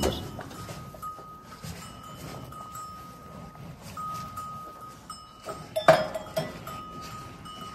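Cattle eating grain feed at a steel headlock feed barrier: munching and rustling of feed in the trough, with one sharp, ringing metal clank of the barrier about six seconds in.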